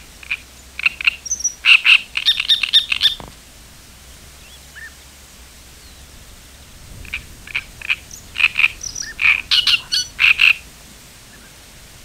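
Animal calls in two bouts of rapid, short pulsed notes, the first near the start and the second a few seconds later, over a steady background hiss.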